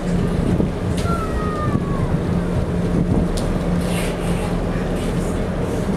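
Whale-watch boat's engine running with a steady low drone, with wind buffeting the microphone.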